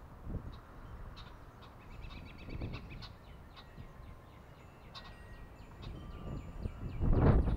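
Several small songbirds chirping and calling in short, overlapping notes, over a low rumble. A loud rush of noise swells briefly near the end.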